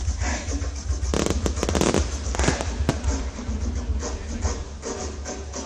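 Fireworks going off: a dense run of sharp bangs and crackles over a steady low rumble.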